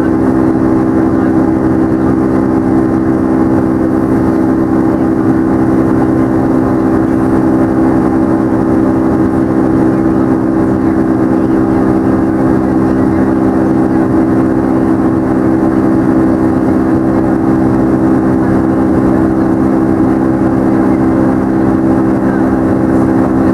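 Boeing 757-200's Pratt & Whitney PW2037 turbofan at climb thrust, heard from a window seat over the wing: a steady jet roar carrying a stack of low buzzing tones, the 'buzzsaw' noise of the fan blade tips running supersonic.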